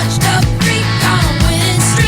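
Rock music with a steady drum beat, bass and guitar, and a singing voice.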